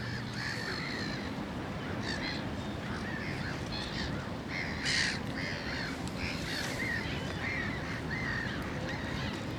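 Birds calling over and over, many short calls in quick succession, the loudest about five seconds in, over a steady low rumble.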